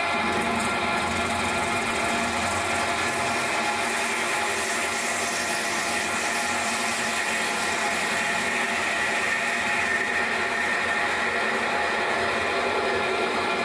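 Small metal lathe running steadily, its motor and gearing giving an even whine, while a lathe tool cuts the end of a phosphor bronze bushing blank.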